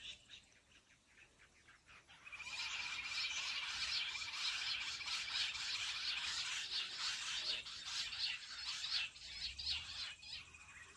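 Jungle bush quail calling: a dense, chattering series of rapid high notes that starts about two seconds in and fades out near the end.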